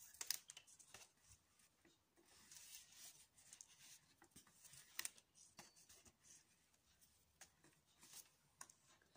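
Near silence with faint rustling and scattered light ticks of thin cord being handled, pulled and tightened into macrame hitch knots by hand.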